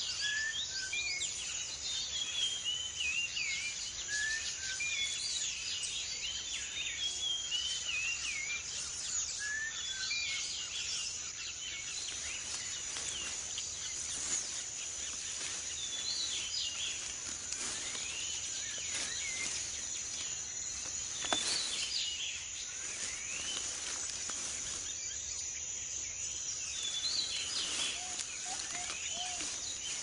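Tropical forest ambience: a steady high insect drone under many short, chirping bird calls, which thin out after the first twelve seconds or so.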